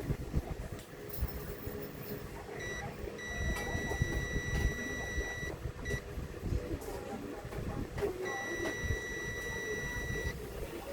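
A digital multimeter in continuity mode beeps with a steady high tone: a brief chirp, a long beep of about two seconds, another brief chirp, then a second long beep of about two seconds. The continuity beep is the sign of a short circuit, here through a shorted SMD Schottky rectifier diode. Low handling noise runs underneath.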